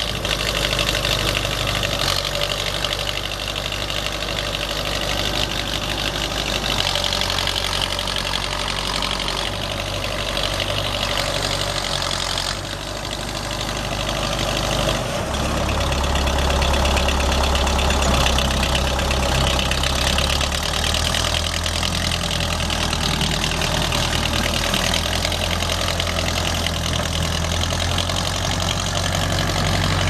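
Case 580C backhoe's four-cylinder diesel engine idling steadily, growing louder about halfway through.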